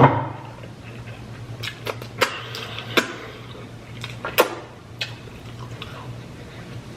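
Close-miked eating of a cheeseburger: wet chewing and mouth smacks, heard as scattered short clicks about every half second to a second. A steady low hum sits underneath.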